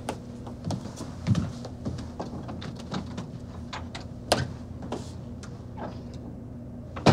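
Scattered light clicks, knocks and rustles of things being handled and moved, irregularly spaced, over a steady low hum of room tone.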